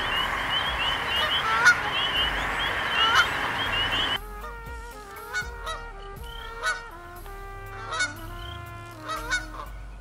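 Canada geese honking over a dense chorus of spring peepers, each peeper giving a short rising peep. About four seconds in, the peeper chorus cuts off abruptly and the level drops; sparser goose honks carry on with steady tones stepping in pitch behind them.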